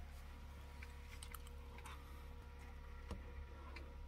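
Quiet room tone with a steady low hum and a few faint, scattered clicks.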